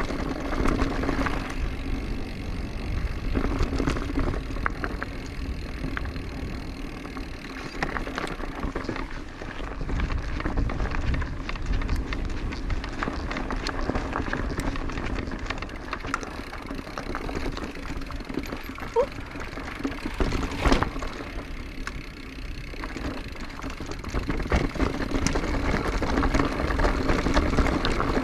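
Orbea Occam full-suspension mountain bike being ridden over a rocky, rooty dirt trail: tyres rolling and crunching with a continuous rattle of small knocks from the bike, and one sharper knock about twenty seconds in.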